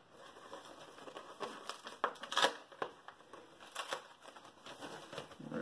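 Tape being peeled off pink plastic bubble wrap and the wrap crinkling as it is unfolded by hand. A few sharp crackles stand out, about two seconds in and again near four seconds.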